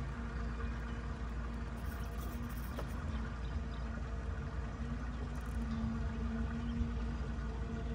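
Boat motor humming steadily over a low rumble, its pitched whine swelling and fading slightly.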